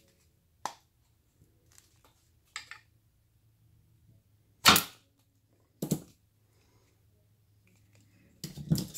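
Utility knife blade cutting and prying at a firework rocket's nose cap and casing: a few separate sharp cracks and scrapes, the loudest about five seconds in, another about a second later and a quick cluster near the end.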